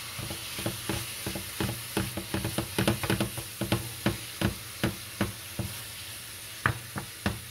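A fork scraping and tapping against a frying pan as ground beef is broken up into small chunks, in quick irregular clicks over a steady sizzle of the hot oil.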